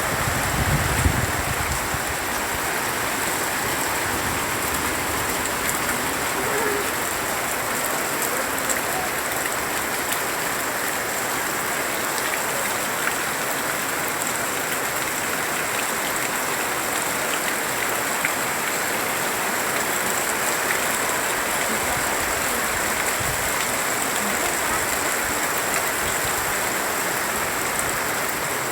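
Heavy rain falling steadily on surfaces, with a brief low rumble in the first second.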